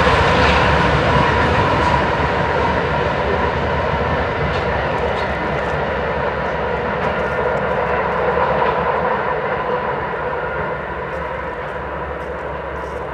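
Rear distributed-power GE ES44AC locomotives' GEVO V12 diesel engines running, a steady whine over a low drone, fading slowly as the end of the train moves away.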